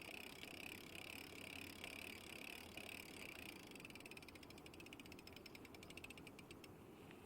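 Faint sound-effect ambience: a high chirp pulses about twice a second, then a rapid run of clicks, about ten a second, sets in halfway through and lasts some three seconds.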